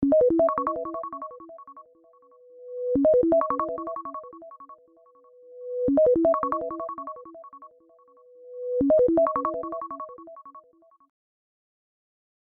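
An iPhone alarm tone from iOS 17: a short, bell-like synthesized melody repeated four times, about every three seconds, each repeat led in by a soft swelling tone. It stops after the fourth repeat.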